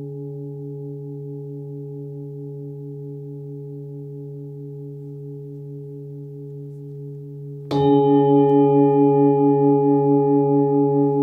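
A 23.5 cm forged Nepalese singing bowl, tuned to about 143 Hz (D), ringing with a slow wavering beat and slowly fading. About eight seconds in it is struck with a felt-covered mallet and rings out again louder and brighter.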